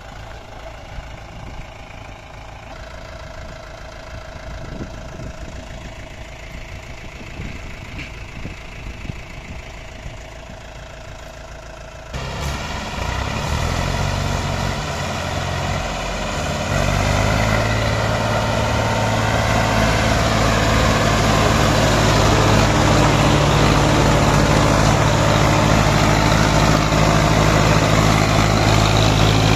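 Diesel tractor engines running as a Mahindra 575 DI XP Plus tows, by chain, an Eicher 485 with a fully loaded trolley. Lower and quieter at first, the sound jumps suddenly louder about twelve seconds in. From about sixteen seconds it holds a loud, steady engine note under heavy load.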